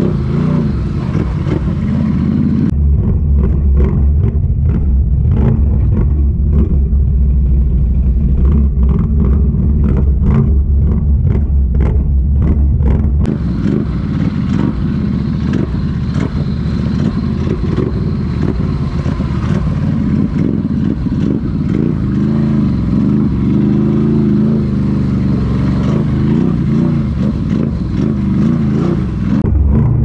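ATV engine running as the quad wades through shallow swamp water, a steady deep drone with clatter. About halfway through the deep drone eases and a broader wash of noise takes over.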